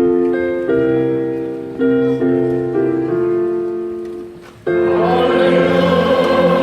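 Piano playing a hymn introduction in slow, sustained chords that fade between changes; about four and a half seconds in, a large congregation comes in singing the hymn over the accompaniment, much louder.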